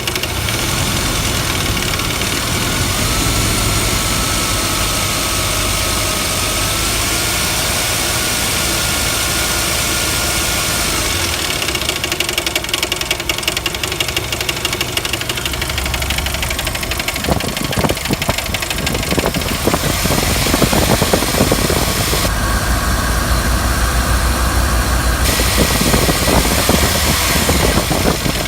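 1999 Jeep Wrangler TJ engine idling with a knock, which gets sharper and more irregular in the second half. The owner places the knock at the front of the engine and is unsure whether it is a front bearing; he suspects timing chain slap.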